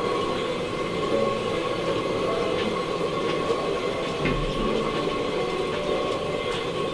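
Cooking at a wood-fired clay stove: a steady rushing noise from the fire and the wok. A few small utensil clicks, and a light metal knock about four seconds in as the lid is set back on the wok.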